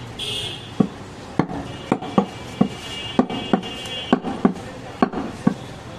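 Heavy butcher's knife chopping goat meat on a wooden stump block: about a dozen sharp chops, roughly two a second.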